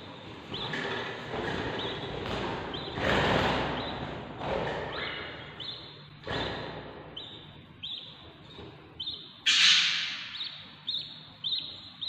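Budgerigar chicks in a nest box giving short, high, repeated cheeps about once a second, broken by a few louder, harsh raspy bursts, the loudest about ten seconds in: the hungry begging calls of young budgies.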